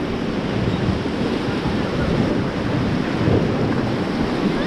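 Steady rush of whitewater from the Beas River rapids under a rafting boat, with wind buffeting the microphone.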